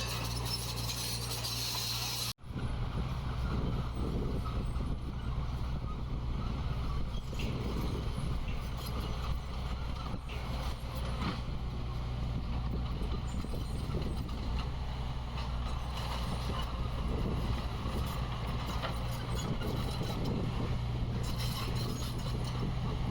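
Heavy diesel engine of earthmoving machinery running steadily with a low drone, cutting out for an instant about two seconds in and then carrying on.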